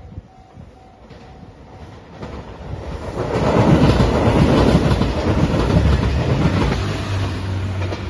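JR Shikoku 2700 series diesel limited express train passing close by, its wheels clattering on the rails. The sound builds to a loud rush through the middle, then eases off into a steadier low hum near the end.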